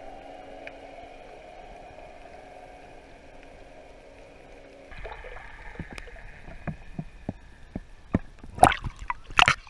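Sound heard through water by a submerged camera: a steady hum for about the first half. After that come scattered sharp clicks, then two loud bubbling splashes near the end as the camera comes up by the surface.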